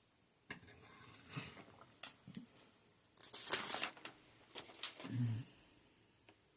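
Close handling noises: a series of rustles and light clicks, with a longer rustle in the middle and a soft low thump near the end.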